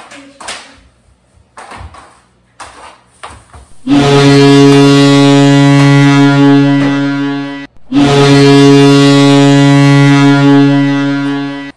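A few sharp knocks, then a hockey goal horn sounds loudly in two long, steady blasts of about four seconds each with a brief break between, signalling a goal scored.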